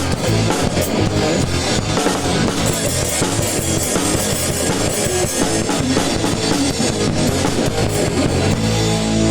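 A PDP Encore drum kit played in a fast ska beat with a band's electric guitar and bass. Near the end the drums stop and a chord is left ringing.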